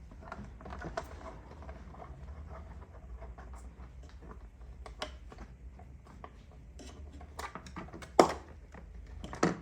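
A T8 Torx screwdriver undoing the screws that hold an iMac's hard drive, heard as faint scattered clicks and scrapes of metal and handling, with a steady low hum underneath. There are two short louder sounds near the end.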